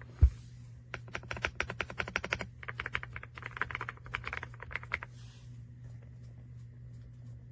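Typing on a YUNZII C75 mechanical keyboard with linear switches: a single low thump just after the start, then a fast run of key clicks lasting about four seconds, which stops about five seconds in.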